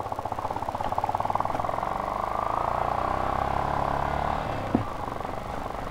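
Motor vehicle engine running steadily with a fast, even pulsing note, easing off slightly after about four and a half seconds, with one short click near the end.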